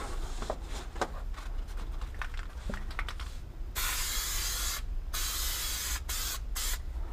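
Aerosol can of spray adhesive hissing as it is sprayed onto foam. The sprays come in four bursts starting about halfway through, the first two about a second each and the last two short, after a few light handling ticks.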